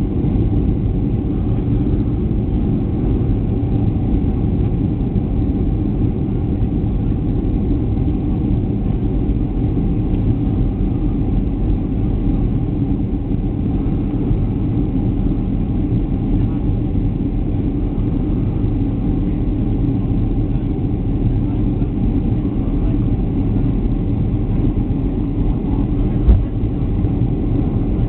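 Steady cabin drone of a jet airliner on approach, engine and airflow noise heard from inside the cabin. A single short click sounds near the end.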